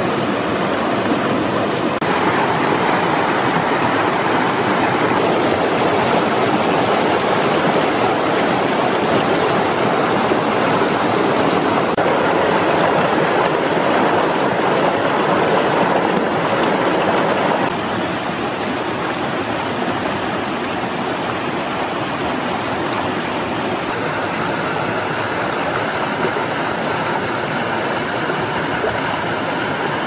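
Rushing water of a rocky mountain stream spilling over a small cascade between boulders: a steady, even rush that jumps in level a few times.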